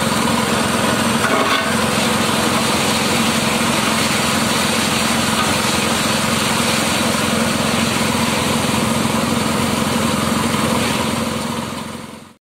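Engine-driven grass chopper (forage cutter) running steadily while chopping grass, its small engine giving a constant hum under the noise of the blades. The sound fades away about a second before the end.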